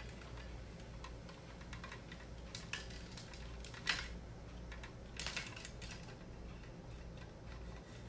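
Scattered light clicks and rattles of a ring light's mount, stand and cable being handled and fitted together, with a sharper knock about four seconds in and a quick run of clicks about a second after it.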